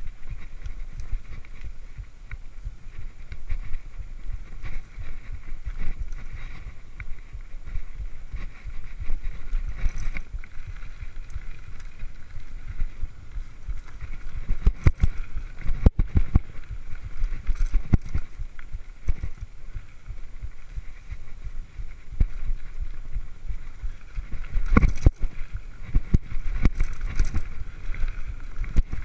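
Mountain bike riding over a dirt singletrack, heard from a camera on the rider: a steady low rumble of tyres and wind on the microphone, with sharp knocks and rattles from bumps in the trail, clustered about halfway through and again near the end.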